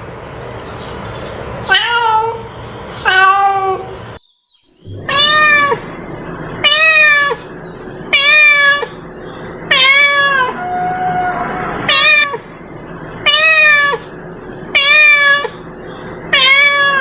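Domestic cat meowing over and over, about one meow every second and a half, each rising then falling in pitch. There is a brief silent break about four seconds in.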